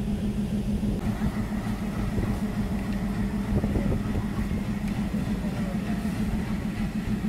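Passenger train pulling slowly out of the platform, its coaches rolling past, over a steady low hum.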